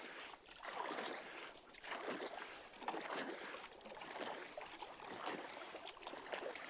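Bent shaft paddle strokes from a stand-up paddleboard: the blade swishing and splashing through the water in soft, repeated surges.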